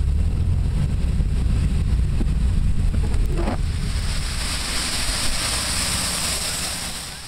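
Wind buffeting the microphone as a steady low rumble over the hiss of heavy rain and car tyres on wet road. The hiss grows stronger about halfway through.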